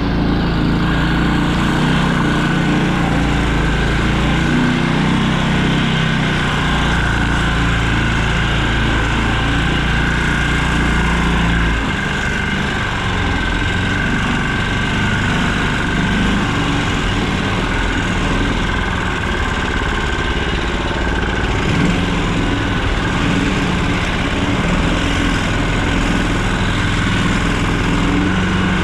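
Small engine of a karakat, a home-built off-road vehicle on low-pressure tyres, running steadily under way. Its low note changes about twelve seconds in.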